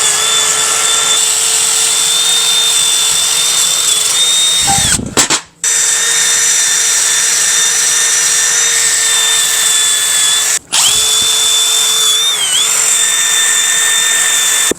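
A handheld power tool running at a steady high speed, used to clean up rusty bench vise parts. It cuts out briefly twice, about 5 and 10.5 seconds in, and its pitch dips for a moment near the end as it takes load.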